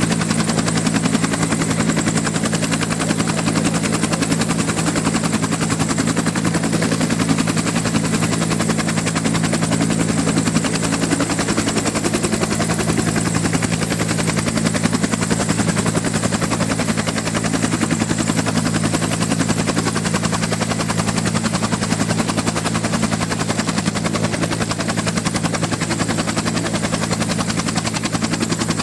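Steady buzzing drone: a low hum under a fast, even flutter and hiss.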